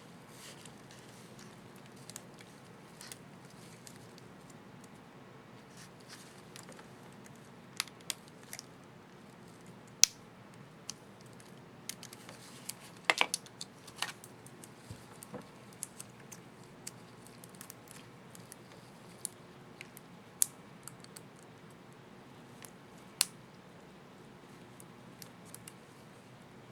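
Small sharp plastic clicks and ticks at irregular intervals, the loudest about ten seconds in and a short cluster around thirteen seconds: a laptop keycap and its small plastic retainer parts being handled and fitted on the keyboard.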